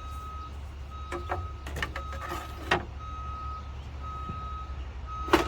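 A vehicle's reversing alarm beeping, one steady tone about once a second, over a low rumble. Several clicks about a second to three seconds in and a louder knock near the end, typical of handling a computer case.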